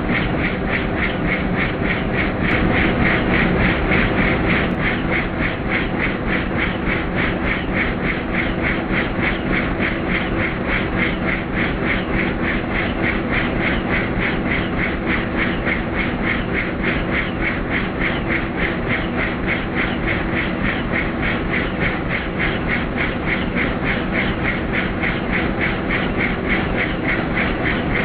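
Helicopter in flight: the main rotor's steady, rapid blade chop over the engine's continuous running noise.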